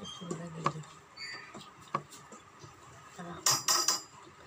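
Hands mixing and picking up rice from steel plates, with light clinks and scrapes on the metal, and a louder clatter about three and a half seconds in. A brief low hum of a voice near the start.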